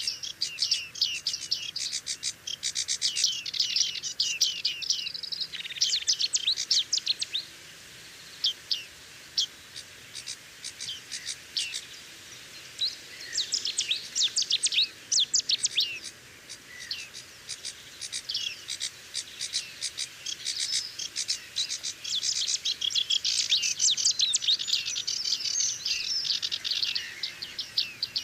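Small songbirds chirping and chattering in quick runs of high notes, several birds overlapping. The calling is busiest in the first five seconds and again from about thirteen seconds on, thinner in between.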